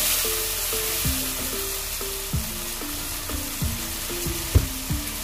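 Chopped onions and tomatoes sizzling in hot oil in a frying pan, under background music with a melody of held notes and a slow, low drum beat.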